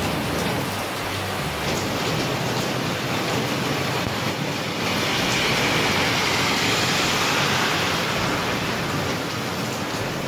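Heavy typhoon rain pouring down steadily onto the road. Midway it swells for a few seconds into a louder hiss as a car passes through the water on the wet road.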